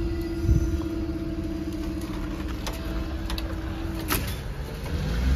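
Level crossing barrier rising: its drive motor hums on one steady tone, then stops with a sharp clunk about four seconds in as the boom reaches upright. A low road-traffic rumble builds near the end.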